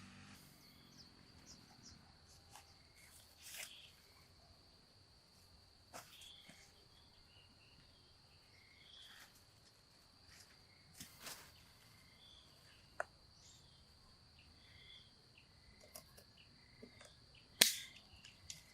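Quiet outdoor ambience: a steady high-pitched insect drone with scattered soft clicks, rustles and short chirps, and a sharp knock or swish near the end.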